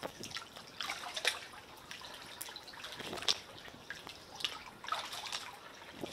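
Kayak paddle dipping into calm water, with small splashes and drips off the blade coming irregularly about once a second.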